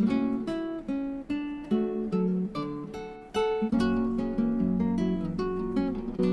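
Background music: acoustic guitar plucking and strumming a light melody with a low chordal accompaniment.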